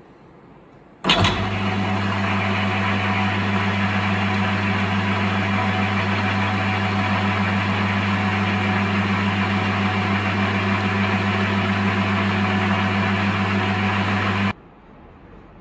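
Metal lathe running at a steady speed with a low motor hum, spinning a workpiece in a collet chuck while a center drill in the tailstock drill chuck spots its end. The sound starts about a second in and stops abruptly near the end.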